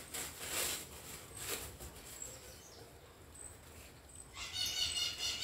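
Soft rustling of paper wrapping as a succulent seedling is unwrapped by hand. Near the end a bird chirps briefly in a high, rapid run.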